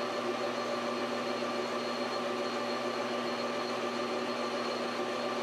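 Metal lathe running steadily with a constant whine from its motor and gearing while a tool turns a taper on the tip of a copper rod.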